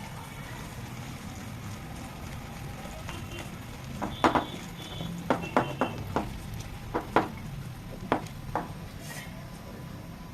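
Gram-flour batter for fenugreek (methi) bhajiya being mixed in a bowl: a soft steady stirring sound with a run of sharp clinks against the bowl from about four to eight and a half seconds in.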